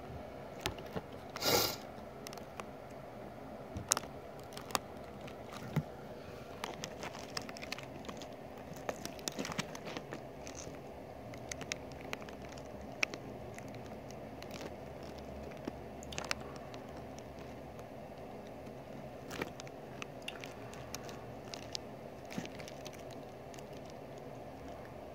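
Close handling noise from a handheld camera held against an ant-farm enclosure: scattered small clicks, taps and crackles over a steady low hum, with one louder scrape about one and a half seconds in.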